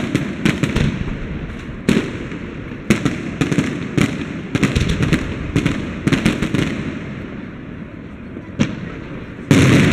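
Aerial firework display: shells bursting in quick succession, sharp bangs every half-second or so over a constant rumble. They thin out in the middle, and one loud bang comes near the end.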